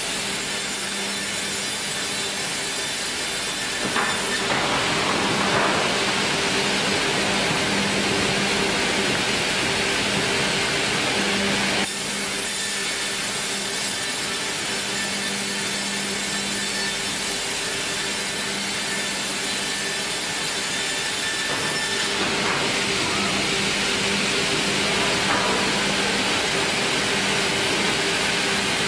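Industrial carriage band sawmill running, its motors giving a steady hum. The blade makes a louder hiss as it cuts through a log from about four seconds in, which stops abruptly near twelve seconds, and again from about twenty-two seconds on.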